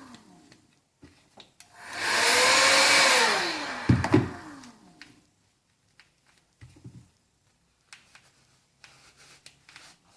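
Electric hot-air blower switched on for about two seconds, a steady rushing whoosh, then switched off so its motor winds down with a falling whine. There are a couple of sharp knocks as it stops, then faint handling clicks and a soft thud.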